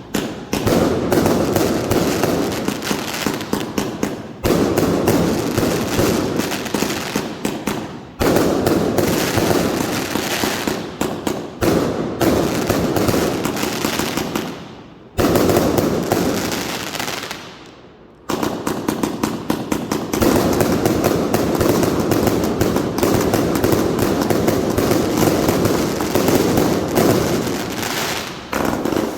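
Category F2 consumer firework batteries firing: a dense barrage of rapid bangs and crackle that breaks off briefly about four, eight, fifteen and eighteen seconds in, then runs on without a break.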